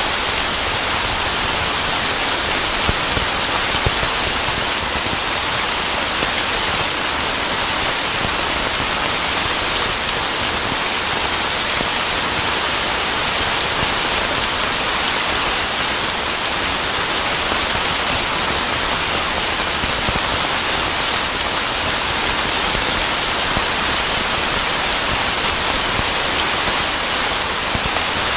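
Steady heavy rain falling on a surface, an even hiss with faint scattered drop ticks.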